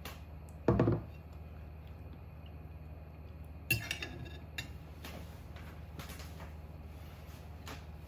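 A metal fork clinks sharply against a ceramic pasta plate a little under four seconds in, followed by a few lighter taps and scrapes. Earlier, just before one second in, there is a short dull thump. A low steady hum runs underneath.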